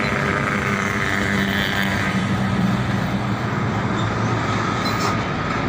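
A motor vehicle's engine running steadily amid road traffic noise, with a low hum.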